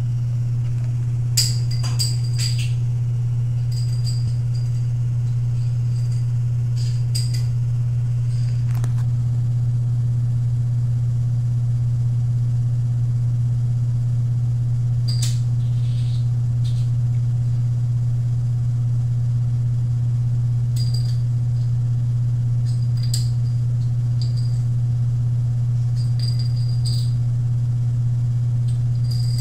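A steady low hum, loudest throughout, with scattered light clicks and ticks at irregular moments.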